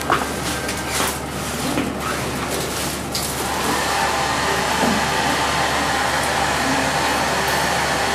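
A steady rushing noise, with a few light knocks in the first three seconds.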